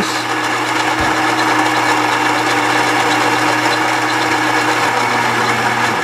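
Gaggia Brera super-automatic espresso machine's built-in grinder grinding coffee beans for a single shot: a loud, steady mechanical whirr.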